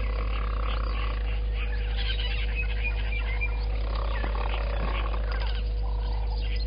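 Several birds chirping and calling in short, scattered notes over a steady low hum.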